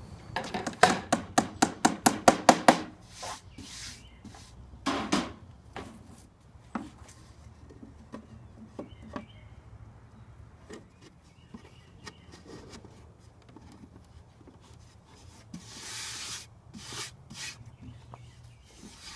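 Knocking and handling of wooden parts: a quick run of about a dozen light knocks on wood, about five a second, then scattered single knocks and wood rubbing on wood.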